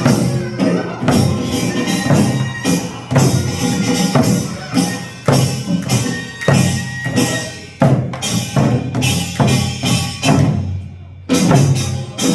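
Korean traditional drum-dance music: repeated stick strokes on a buk barrel drum with bright metallic percussion, the beat breaking off briefly near the end and then coming back in.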